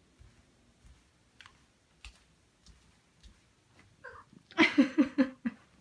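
Ragdoll cat giving a quick run of four or five short meows, after a few faint clicks and taps.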